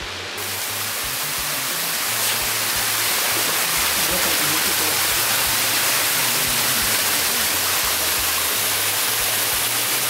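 Waterfall pouring down a rock face: a steady rush that grows louder over the first two or three seconds, with low background music notes underneath.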